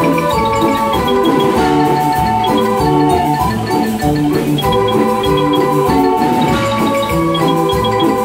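Several hand-cranked barrel organs playing a tune together: sustained pipe notes moving through a melody and bass line, with short, bright, bell-like notes repeating on top.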